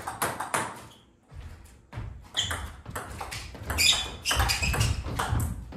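A table tennis rally: the ball clicks repeatedly off bats and table in quick exchanges, with a short pause about a second in. Rubber-soled shoes squeak on the floor, and there are heavier footwork thumps in the second half.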